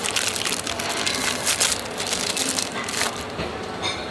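Crinkling of a plastic candy wrapper being handled and opened by hand: a dense crackle that stops about three seconds in, with a brief crinkle near the end.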